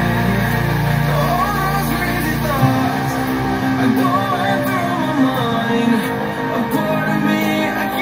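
A drum-and-bass song with singing played loudly through a pair of Yamaha bookshelf speakers (4-inch woofer, 1-inch dome tweeter) driven by a small TPA3110 class-D stereo amplifier with no tone controls. A deep sustained bass note cuts out about two and a half seconds in while the vocal line carries on.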